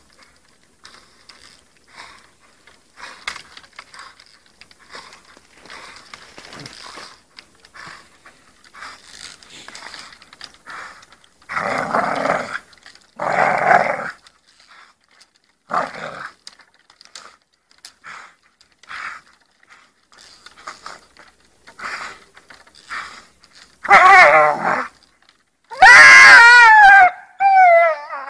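Pit bull growling in short bursts with its jaws clamped on a stick, louder around twelve to fourteen seconds in and loudest near the end.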